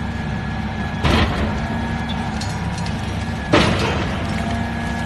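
Heavy demolition machinery with its engine running steadily, and two sudden crashes from the demolition, about a second in and again about three and a half seconds in.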